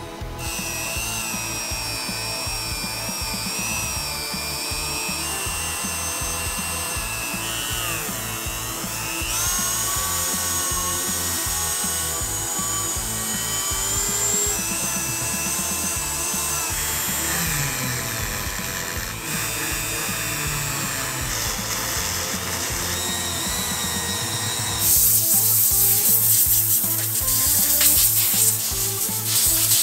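A handheld rotary tool with a small abrasive wheel whines as it grinds an engine cover. Its pitch holds steady for a few seconds at a time, then jumps to a new one, over background music with a beat. About 25 seconds in, a louder scratchy scrubbing noise takes over as a brush works over an engine part.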